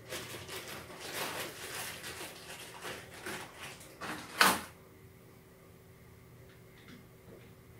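A small plastic bag of terminal bolts crinkling and rustling as it is torn open and handled, with small clicks, then one loud sharp knock about four and a half seconds in. A few faint ticks follow as the bolts are tried in a battery cell's terminals.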